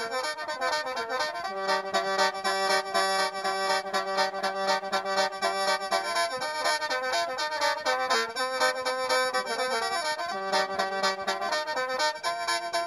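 Khaen, the bamboo free-reed mouth organ of mor lam, playing an instrumental passage of sustained chords over a low note held for a few seconds at a time.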